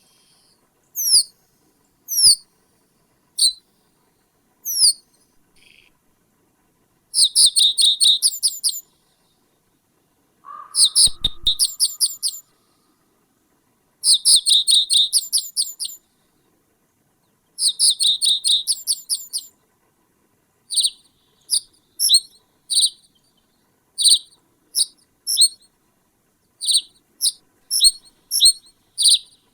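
A small songbird calling close by: sharp, high, downward-sliding single notes at first, then four rapid trilled phrases of about two seconds each, then a scatter of short chips. A brief lower sound comes about ten seconds in.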